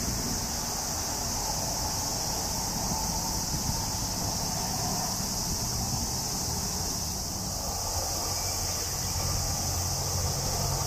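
Steady high-pitched drone of summer insects. Under it is a low rumble that starts to build near the end as a train approaches the bridge.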